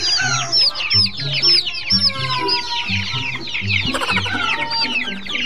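A flock of young chickens peeping in a dense, continuous chorus of short, high, falling chirps. Background music with a steady low beat runs beneath.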